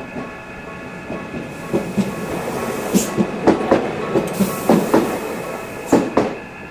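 Two-car Tokyu Setagaya Line 300 series tram crossing a level crossing, its wheels knocking over the rail joints in pairs of clacks from about two seconds in until just after six seconds. The crossing's warning bell rings steadily behind it.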